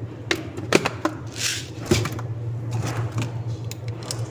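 Clear plastic cups being handled on a wooden surface: scattered light clicks and knocks, with a short plastic rustle about a second and a half in, over a steady low hum.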